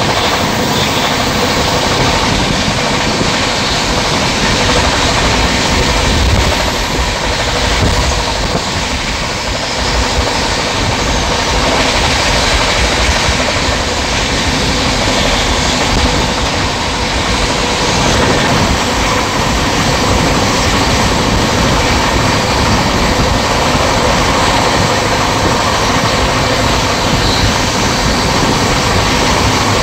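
Passenger train running at speed, heard from inside the coach at the window: a loud, steady noise of wheels on rails and the moving carriage.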